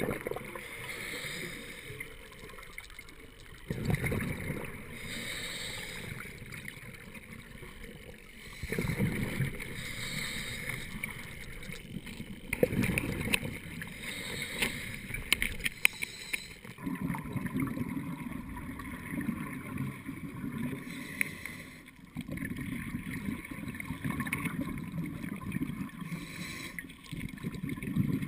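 Scuba diver breathing through a regulator, heard underwater: a loud rush of exhaled bubbles every four to five seconds, with quieter inhalation hiss between them. A run of sharp clicks comes in the middle.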